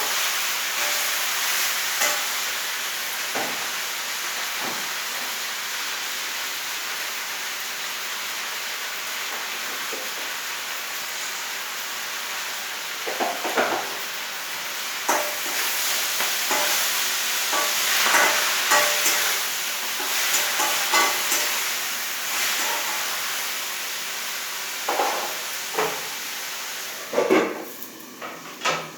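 Leafy greens (saag) sizzling as they fry in a pan: a steady sizzle, with the spatula knocking and scraping against the pan now and then, more often in the second half. The sizzle drops away near the end after a few louder knocks.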